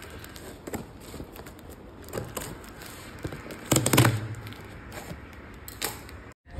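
A knife blade cutting and scraping along packing tape and plastic wrap on a cardboard box, with crackles and scrapes as the box is handled. A louder thud and rustle come about four seconds in.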